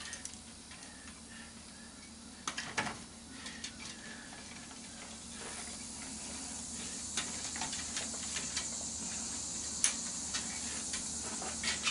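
Sharp clicks and snips of wire cutters cutting cords on a CRT monitor's circuit board, with small handling rattles. A steady high hiss builds from about halfway in.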